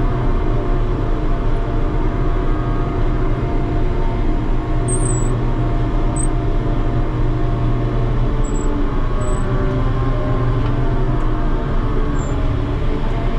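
A ship's deck crane running steadily, heard from inside its operator's cab: a loud, even drone from the crane's power unit and hydraulics while it is worked through its mechanical control levers.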